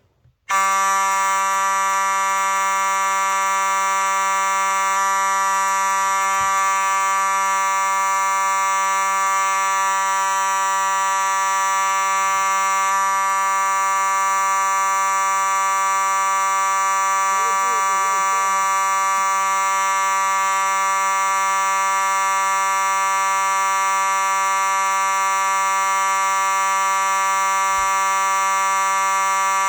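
Simplex 4903-9221 electromechanical fire alarm horn switching on about half a second in and sounding continuously: one steady, unbroken, loud horn tone.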